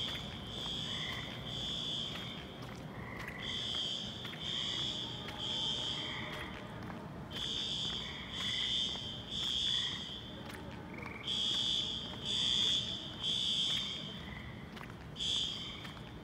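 Building fire alarm horns sounding the temporal-three evacuation signal: groups of three high blasts, one group about every four seconds, with a fainter, lower beep between the groups. Near the end the pattern breaks off after a single blast.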